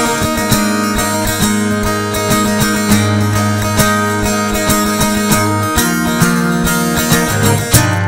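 Eko Mia D acoustic guitar played fingerstyle: a plucked melody over ringing bass notes, with a few sharper, harder-struck notes near the end.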